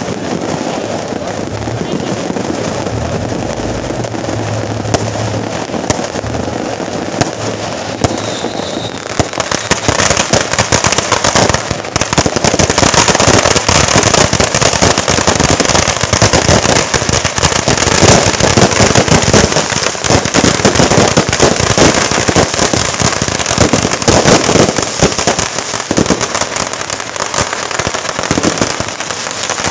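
Strings of firecrackers going off in dense, rapid crackling, becoming much louder and denser about nine seconds in and keeping on to the end.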